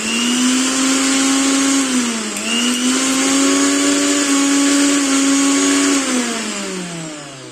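Mixer grinder motor switched on and running smoothly after its worn bushes were replaced, with one brief dip in speed a little past two seconds in. About six seconds in it is switched off and winds down, its whine falling in pitch as it fades.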